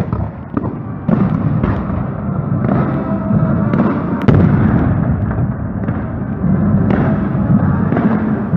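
Fireworks bursting with sharp bangs over a military band playing, the sharpest bang about four seconds in.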